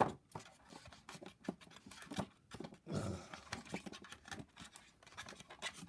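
Irregular clicks, taps and rustles of hands handling a 1/6 scale action figure and its small parts, taking the pistol out of the figure's opening leg holster.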